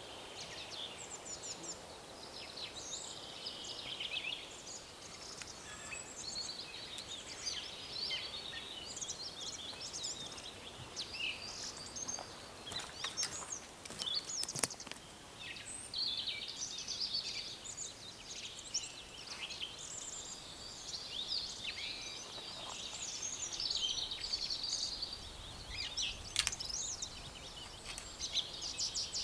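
Many small songbirds singing and calling, short chirps and trills overlapping throughout, with a few sharp clicks about halfway through.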